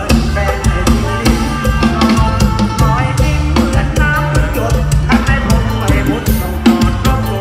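Loud live band music with a steady drum-kit beat and bass.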